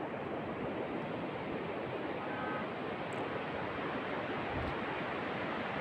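Steady outdoor rushing noise with no distinct events, and a faint short tone about two seconds in.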